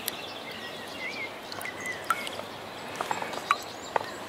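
Small birds calling in short chirps and whistles over a steady wash of stream water, with a couple of sharp clicks near the end.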